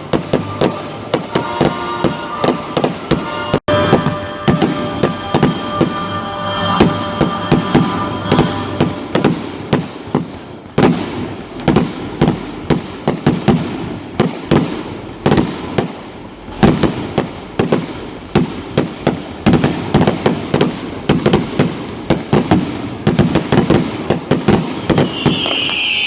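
Fireworks display in a rapid barrage: sharp bangs and crackles several times a second, with heavy booms between them.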